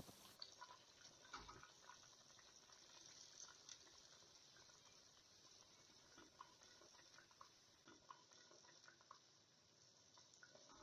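Near silence with faint, scattered small pops and ticks of vegetable broth simmering in a pot.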